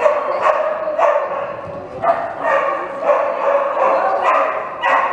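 A dog barking over and over, about two loud barks a second, with a short pause about a second and a half in.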